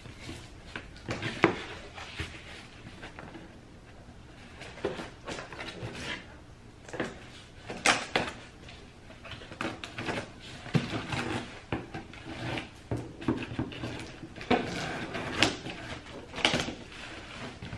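Scissors cutting and scraping along the packing tape of a cardboard shipping box, with irregular snips, scrapes and knocks as the box is handled; the sharpest knock comes about a second and a half in.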